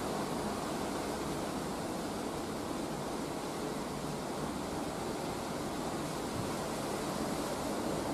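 Steady rushing noise of an Airbus A330-300's Rolls-Royce Trent 700 jet engines at low power as it flares to land, heard from afar with no distinct tone.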